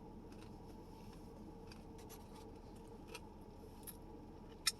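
Quiet room tone with a few faint ticks, and a sharper double click near the end.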